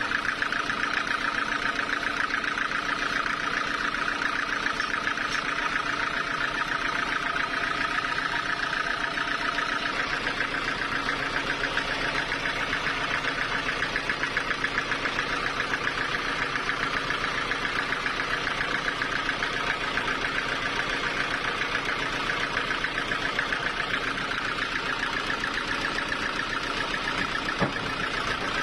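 Sawmill engine running steadily with a fast, even pulsing.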